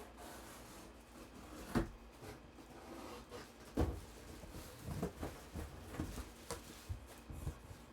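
A cardboard box being handled and opened, with rubbing and scraping and a few sharp knocks, the loudest about two seconds in and near four seconds in.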